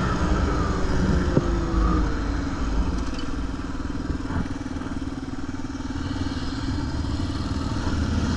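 Motorcycle engine running while riding, at a fairly steady pace, dipping a little in the middle and picking up again near the end.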